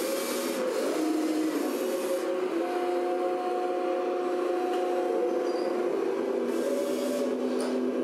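Radio-controlled model construction machines, an RC Volvo excavator and model tipper trucks, with their electric hydraulic pumps whining together. The several steady whines step up and down in pitch as the boom, bucket and tipper beds are worked.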